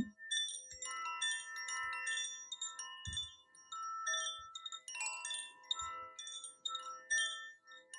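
Wind chimes tinkling softly: scattered ringing notes of different pitches struck at irregular moments, each dying away, with a brief low thump about three seconds in.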